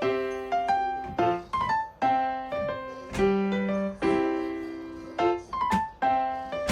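Background music: a piano melody of struck notes that ring and fade, in an even rhythm.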